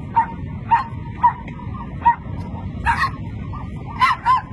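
Small dogs barking in short, high yips, one after another, roughly one to two barks a second, with a quick double bark near the end.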